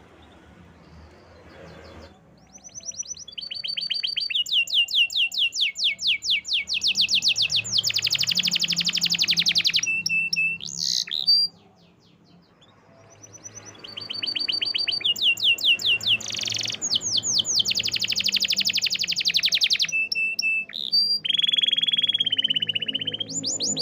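Canary singing two long song phrases made of fast runs of repeated chirps and trills, with a dense rapid roll near the end of each, and a short pause about halfway.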